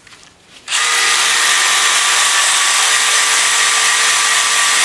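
Handheld electric power tool starting up about a second in and running steadily at full speed with a loud hiss and motor whine, working a piece of metal held in the hand rather than clamped in a vise.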